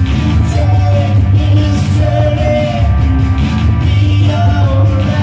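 Live pop song played loud through a PA: singing over amplified acoustic guitar with a heavy, steady bass.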